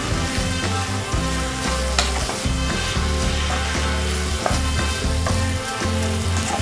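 Leafy greens sizzling in oil in a non-stick kadai as a wooden spatula tosses them, with a few sharp taps and scrapes of the spatula against the pan.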